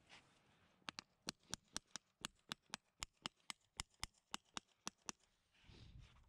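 Farrier's driving hammer tapping a horseshoe nail through the shoe into the hoof wall: a quick, even run of sharp metallic taps, about four a second, for roughly four seconds.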